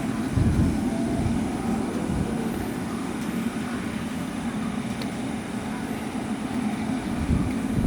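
Steady low rumble of jet aircraft engines, with wind gusting on the microphone.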